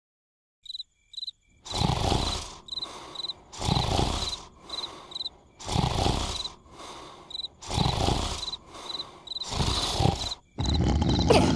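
Cartoon larva snoring: loud snores about every two seconds over the steady chirping of crickets. Near the end a louder, continuous sound takes over.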